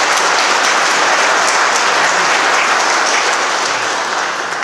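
An audience applauding, easing off slightly near the end.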